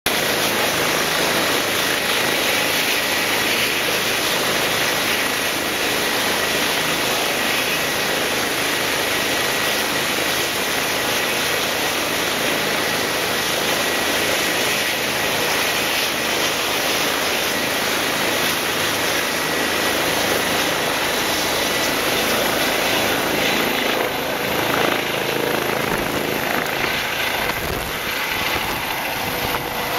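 Helicopter running on the ground: a steady high turbine whine over the rush of the rotor. Near the end it lifts off, and the sound turns rougher, with low gusts of rotor wash.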